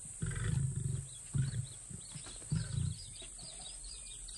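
Young lions growling low: three short growls in the first three seconds. Birds chirp faintly over the second half.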